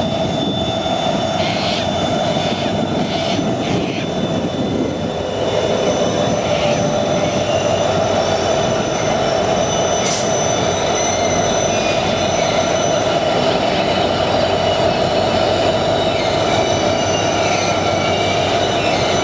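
Train on the line near the loop: a loud, steady rumble with a strong hum and several thin, high metallic tones, and one short sharp squeak about ten seconds in.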